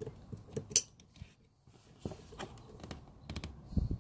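Plastic wiring-harness connectors being handled and pushed together, giving irregular sharp clicks and rattles, the loudest about three-quarters of a second in, with a dull thump near the end.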